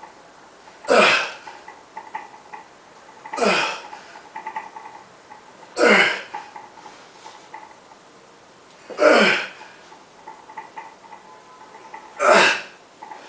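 A weightlifter's sharp, forceful breaths out, one with each overhead squat rep: five short hissing bursts about every three seconds.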